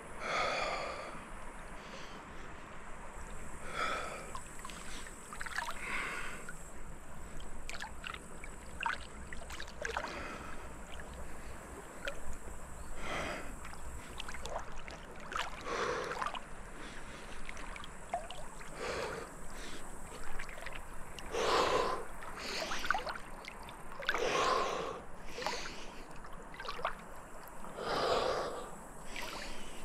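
Paddle strokes splashing in river water, one every two to three seconds.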